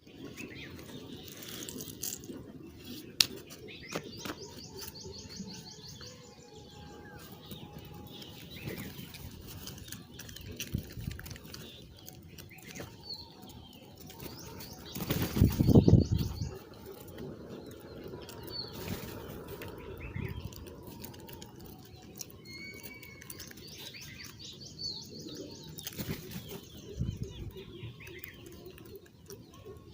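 Birds chirping and trilling in short high calls over a steady outdoor background, with a loud brief rush of wing flaps about halfway through.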